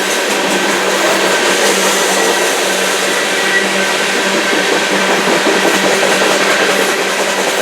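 Union Pacific coal train rolling past: a steady, even noise of wheels on rails with a constant low hum underneath.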